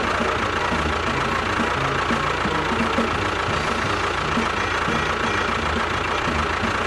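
An engine running steadily, with a high whine held over it.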